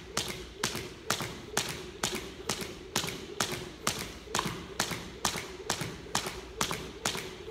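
Crossrope 1/2 lb weighted jump rope turning at a steady pace: the rope slaps the hardwood floor about twice a second, each slap with the jumper's light landing, in an even rhythm.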